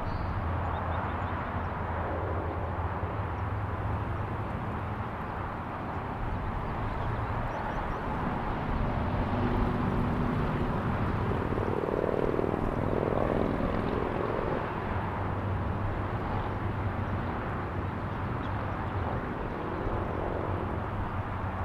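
Motorcycle riding along a road: the engine's steady low hum under the rush of wind and road noise, growing louder for several seconds in the middle.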